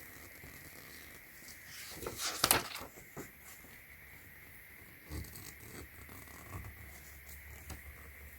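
Handling noises from unpacking a small boxed gadget: a short burst of rustling and clicks about two seconds in, then a few soft knocks.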